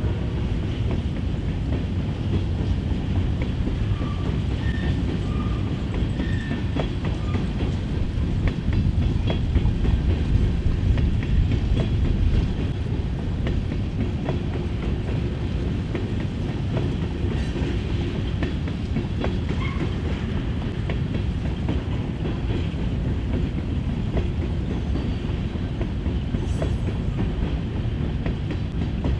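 Empty covered hopper cars of a grain train rolling past: a steady low rumble with the clickety-clack of wheels over rail joints.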